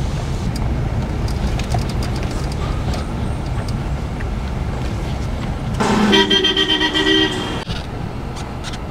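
Steady low rumble of a vehicle travelling on the road; about six seconds in a vehicle horn sounds once for about a second and a half and cuts off suddenly.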